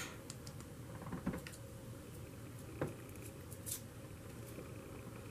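Faint handling sounds of a tinted lip gloss being applied with its wand applicator: a few soft clicks and taps, spread out, over quiet room noise.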